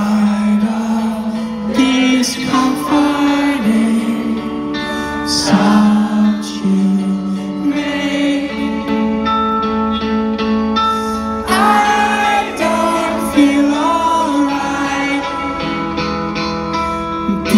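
A rock band playing live through the arena's PA, with a male singer's voice over long held chords, heard from within the crowd on a phone recording.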